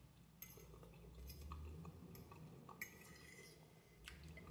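Quiet eating sounds: a fork scraping and clinking on a plate, with soft chewing. One sharper clink with a brief ring comes near three seconds in.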